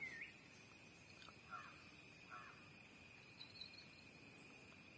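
Faint riverside ambience: a steady high-pitched insect drone, with two short bird calls about a second and a half and a little over two seconds in.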